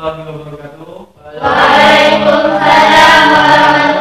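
A choir of many voices singing. It is quieter and duller for the first second, dips briefly, then comes in loud and full from about a second and a half in.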